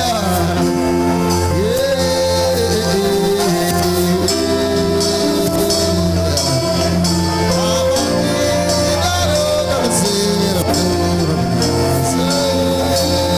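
Gospel worship music: a voice singing slow, gliding lines over long held chords, with steady shaken percussion.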